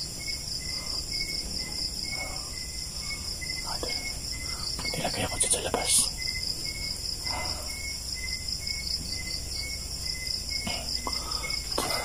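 Night insect chorus of crickets: a steady high-pitched trill with a regular chirp pulsing about twice a second. Faint murmuring voices come and go, and there is a single sharp click about six seconds in.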